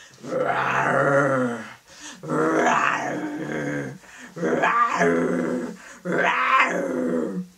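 A woman's voice growling in imitation of a tiger for a tiger puppet: four long, low growls, each about a second and a half, with short breaks between them.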